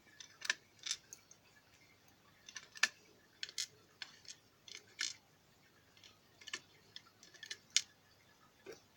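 Irregular small metallic clicks and taps of a pin-tumbler padlock being taken apart: pins and springs coming out of a Lockwood padlock's cylinder into a pin tray.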